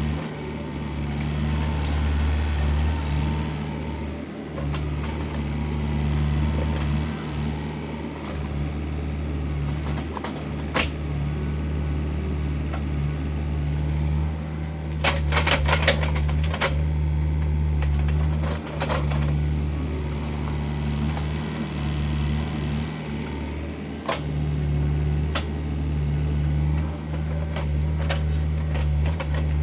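Excavator's diesel engine running steadily with small rises and dips, with a few sharp metallic clanks, a quick cluster of them about halfway through.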